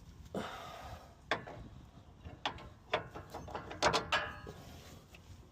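A scrape, then a series of sharp metal clanks and knocks, the last few close together with a brief ring, as a new steering linkage part's stud is worked into its mount.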